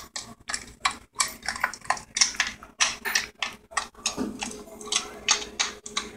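Irregular light clicks and taps, two or three a second, from small plastic containers and utensils being handled while a slime mixture is made. A short rising voice-like sound comes about four seconds in, followed by a faint steady hum.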